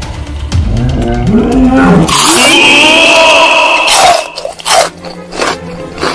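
Lion roaring and growling, followed about two seconds in by a loud, harsh, high cry, then a few sharp hits near the end.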